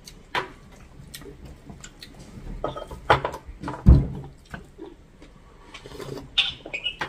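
Table eating noises: scattered light clinks of spoons and bowls, a dull knock about four seconds in, and a short slurp as broth is drunk straight from a bowl near the end.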